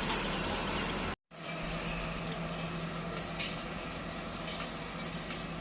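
Heavy construction machinery engine running steadily, with a steady low hum and mechanical noise; the sound cuts out for an instant about a second in, then carries on.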